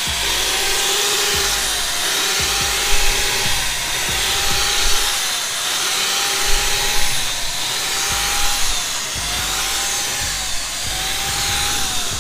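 Handheld electric paint sprayer running steadily, its motor buzzing under the hiss of paint spraying onto an aluminum jon boat hull.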